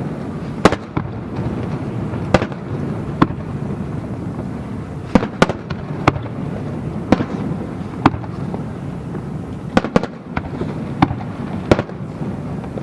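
Aerial fireworks bursting in a large display: about a dozen sharp bangs at irregular intervals over a continuous low rumble.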